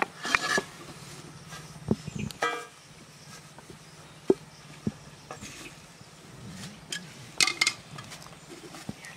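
Aluminium pot and lid being handled: scattered knocks and clinks, with one short metallic ring about two and a half seconds in and a quick cluster of clicks near the end.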